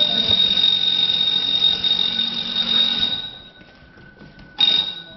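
High-pitched electronic alarm tone sounding steadily for about three seconds, then stopping. A second burst comes near the end, and a fainter, lower steady tone is held under the second half.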